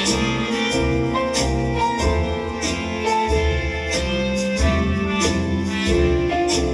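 Old-time jazz music with piano and a steady beat.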